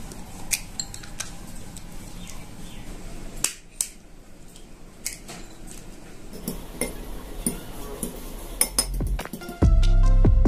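An egg shell tapped with a fork to crack it over a small glass bowl, then a metal spoon clinking against the glass as the egg is stirred: scattered sharp clicks and clinks. Loud background music comes in near the end.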